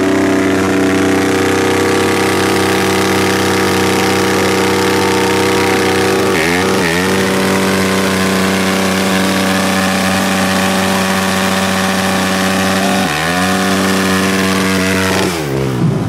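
Dirt bike engine held at high, steady revs while the rear tyre spins in a burnout. The revs dip briefly twice and climb straight back, then drop away near the end.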